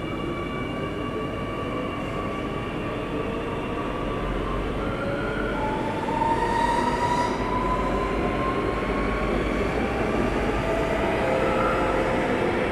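Singapore MRT Circle Line train heard from inside the carriage while moving: a steady rumble and rail noise, with a whine that glides upward, growing slightly louder through the stretch.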